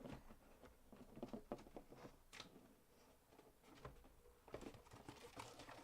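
Faint, scattered clicks and rustles of hands handling cardboard trading-card boxes.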